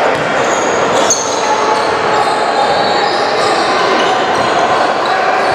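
Basketball game sound: a ball bouncing on the court over a steady wash of player and spectator noise, with a sharp bang about a second in.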